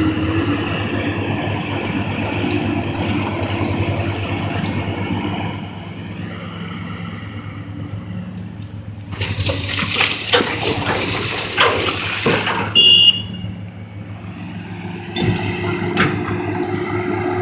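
Cat 375L hydraulic excavator's diesel engine running steadily, easing off for a few seconds after about six seconds. About halfway through, a loud rattling clatter of rock pouring from the bucket into a dump truck's bed lasts about three seconds, followed by a brief high squeal, and the engine picks up again near the end.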